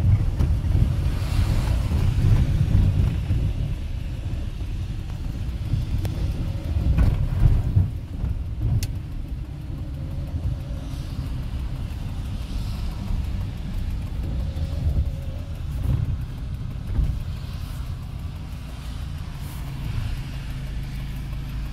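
Steady low rumble of a car and wind-buffeted phone microphone, with a few brief knocks.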